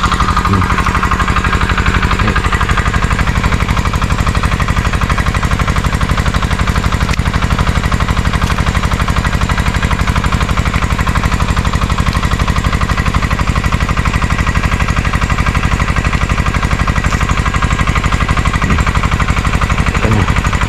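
Engine running steadily and noisily with a rapid, even chugging beat.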